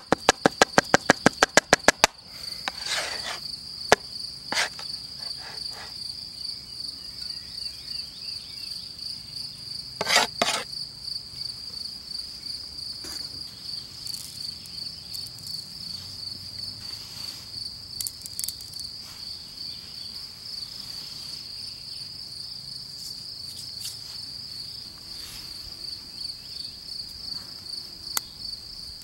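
Crickets chirring steadily in the grass, a continuous high pulsing trill. For the first two seconds a large knife chops rapidly on a wooden board, several strokes a second, stopping suddenly; after that only a few scattered knocks and clicks.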